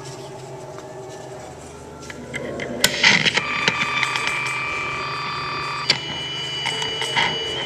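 Electronic tones from a toy keyboard played through a small Ibanez guitar amplifier. They start about two and a half seconds in with clicks, then one steady high tone is held for a couple of seconds, and a higher tone follows near the end.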